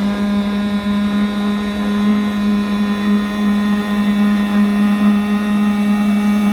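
Radio-controlled model boat's motor running at a constant speed, a steady buzzing hum that holds one pitch.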